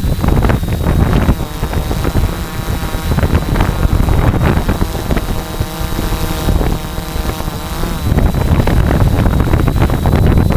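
Electric motors and propellers of an F450-type quadcopter running as it hovers low and climbs slowly, recorded by its onboard camera, so heavy wind and prop-wash noise buffet the microphone. A steady pitched motor hum shows through twice for a few seconds, over a thin high whine.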